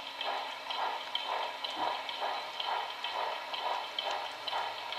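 Model steam locomotive chuffing at a slow, even beat of about two chuffs a second, with a faint steady hum under the first half.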